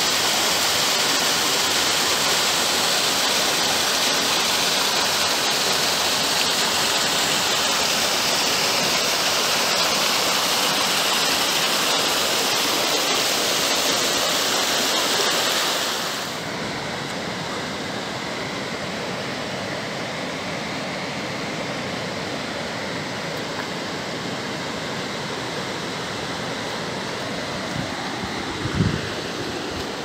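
Waterfall pouring into a rocky pool: a steady, loud rush of water. About halfway through it cuts to a quieter, duller rush of running water, with a brief low thump near the end.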